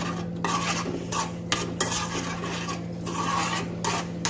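A spoon stirring thin puri curry in a stainless steel pan, scraping against the metal in a run of irregular strokes, just after gram flour and water have gone in.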